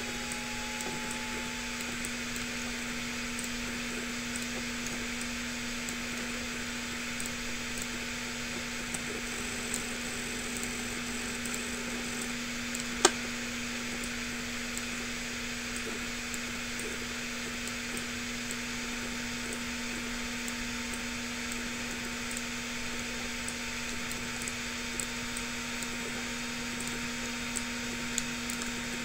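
Steady background hum over an even hiss, with one sharp click about thirteen seconds in and a few faint ticks.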